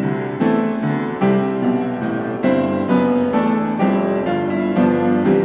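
Background piano music: gentle notes and chords struck one after another, each ringing and fading.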